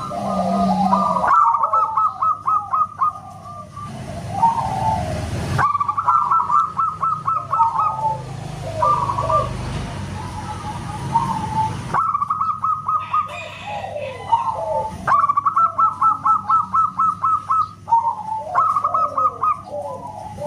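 Zebra doves (perkutut) cooing, several birds at once: quick runs of staccato notes, each run falling away into lower notes, over and over. The track changes abruptly several times, as if spliced.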